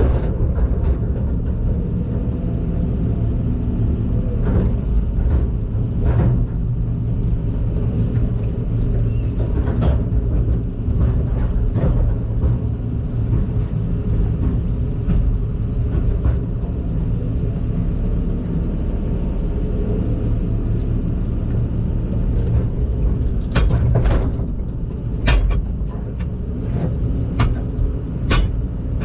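Heavy machine's engine running steadily with a low hum, with scattered knocks and clicks that come more often near the end.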